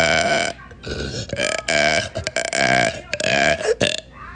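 A woman burping loudly: one long burp that ends about half a second in, then a string of shorter burps one after another.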